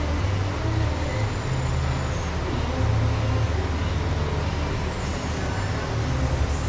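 Steady low rumble of motor vehicle engines running, with no single event standing out.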